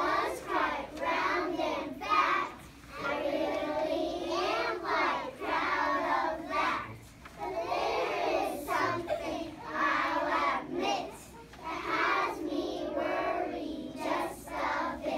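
A group of young children singing a song together in unison, in short phrases with brief pauses between them.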